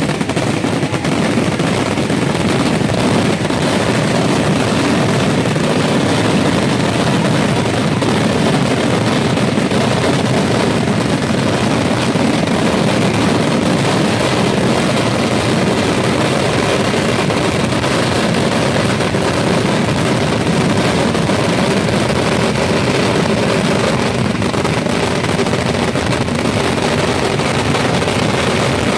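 Kerala festival fireworks: an unbroken, rapid barrage of firecracker bangs so dense they run together, at a steady loudness with no pause.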